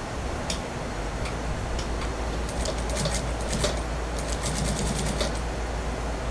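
Industrial sewing machine stitching a suit sleeve slowly, in short starts and stops: scattered needle clicks, then a quicker, even run of stitches about four seconds in, over a steady low motor hum.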